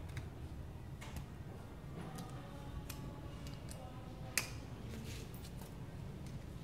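Scattered light clicks and taps of hands and a screwdriver working at a scooter's plastic body panel, with one sharp click about four seconds in, over a low steady hum.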